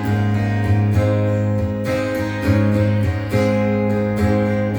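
Acoustic guitar strumming chords in a steady rhythm, played live.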